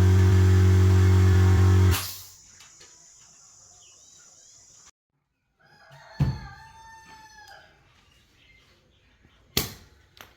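A steady low hum that cuts off abruptly about two seconds in. After a quiet stretch, a rooster crows once, with a sharp knock as the crow begins and another knock near the end.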